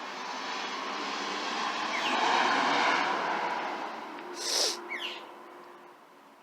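Engine noise of a passing vehicle, swelling to a peak two to three seconds in and then fading away, with a few short falling chirps from a small bird over it.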